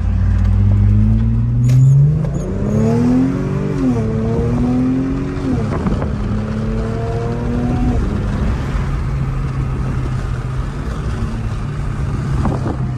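2012 Audi A7 engine and exhaust with the rear mufflers deleted, heard from inside the cabin while accelerating. The pitch climbs and falls back at each of several upshifts over the first eight seconds or so, then the engine runs steadily at cruise.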